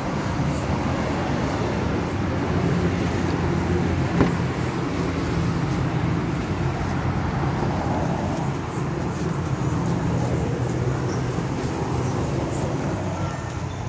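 A motor vehicle engine running steadily with a low, even hum. A single sharp click comes about four seconds in.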